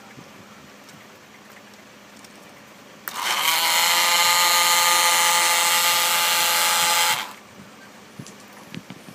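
Small DC hobby motor spinning a plastic propeller, a steady whine that switches on about three seconds in and cuts off sharply about four seconds later.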